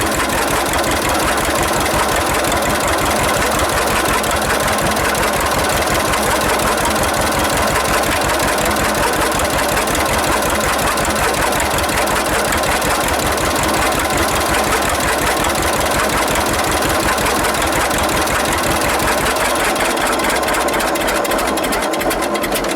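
1946 John Deere AR's two-cylinder engine running steadily with its muffler off, a loud, even run of exhaust pulses. The owner calls it definitely too loud without the muffler.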